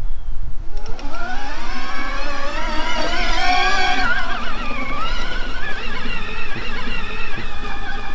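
Electric drive motor of a rear-wheel-drive Outrider Coyote recumbent trike whining as it pulls away. Its pitch rises about a second in, then wavers up and down as the speed changes over rough grass, with low wind rumble underneath.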